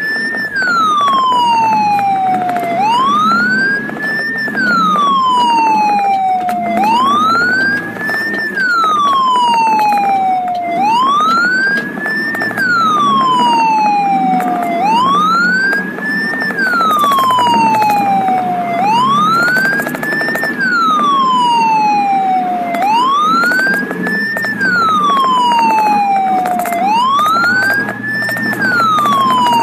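Ambulance electronic siren on the wail setting, each cycle rising quickly and falling slowly, about once every four seconds, with the vehicle's engine and road noise running underneath.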